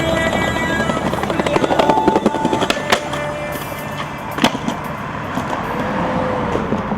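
Skateboard wheels rolling on pavement with two sharp board clacks, under background music.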